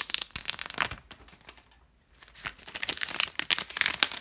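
Clear plastic shrink wrap being peeled off a phone box and crumpled in the hand: close, crisp crinkling in two spells, with a short lull in the middle.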